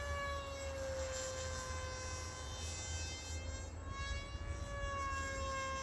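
Electric motor and propeller of a small RC flying wing whining in flight overhead: a steady buzzing tone with several overtones that sags slightly in pitch, thins out in the middle and strengthens again from about four seconds in. Wind rumbles on the microphone underneath.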